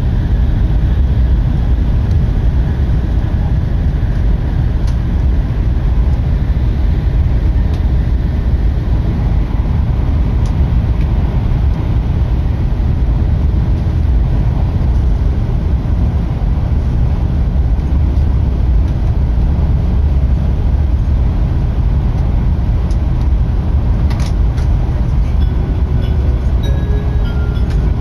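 Tokaido Shinkansen train at speed heard from inside the car: a loud, steady low rumble of the running train. A faint click and a few short, faint tones come near the end.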